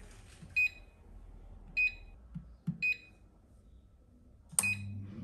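Three short electronic beeps from an air fryer's control panel, about a second apart, as it is set to preheat. Near the end comes a louder click with a brief low hum.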